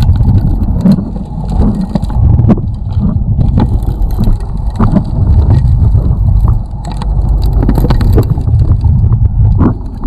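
Suction gold dredge heard through an underwater microphone: a loud steady low rumble of the running dredge, with frequent sharp knocks and clicks of stones and gravel knocking together in the hole being dredged.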